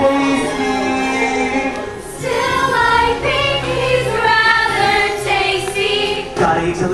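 Chorus of mostly young female voices singing a musical-theatre number over instrumental accompaniment.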